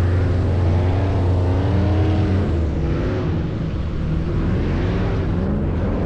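Airboat engine and large air propeller running loud and steady, with a low drone and engine tones that rise and fall a little in pitch.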